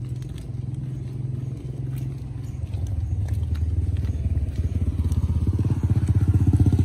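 Engine of a motorcycle-sidecar tricycle running as it approaches, a low, fast, even pulsing that grows louder from about halfway through and is loudest at the end.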